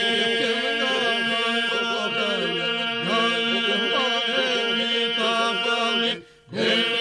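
Albanian polyphonic folk singing: a group of voices holds a steady drone while a lead voice winds a melody above it. The voices break off together briefly about six seconds in, then come back in on the drone.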